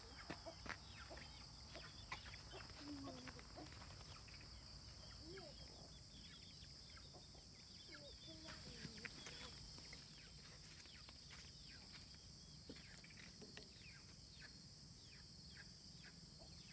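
Faint rural evening ambience: a steady high-pitched insect chorus throughout, with scattered faint clicks and a few faint distant calls in the first few seconds and again around eight seconds in.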